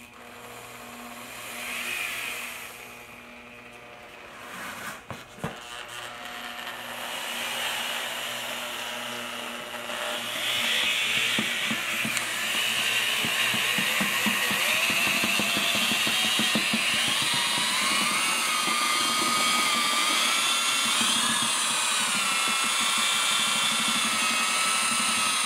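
Corded drill turning a paddle mixer through unsanded grout in a plastic bucket, started slowly: quiet at first, then louder about ten seconds in as the motor speeds up, its whine rising in pitch and then holding steady.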